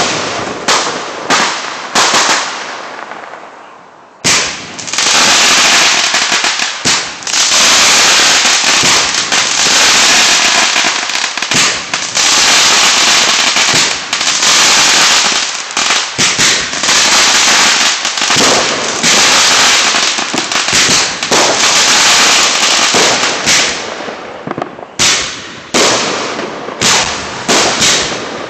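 Aerial fireworks going off. A few separate bangs come first, then from about four seconds in a dense barrage of rapid pops and bangs runs for some twenty seconds, thinning back to separate bangs near the end.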